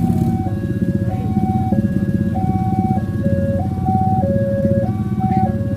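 Railway level-crossing warning alarm sounding a steady two-tone signal, a high and a low note alternating about every two-thirds of a second, the signal that a train is approaching and the crossing is closing. A loud engine rumble runs underneath.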